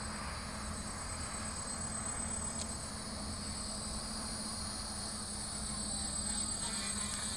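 Quadcopter's electric motors and propellers humming steadily as it hovers, pulling on a tow line hooked to a crashed float plane, with a thin high whine over the hum.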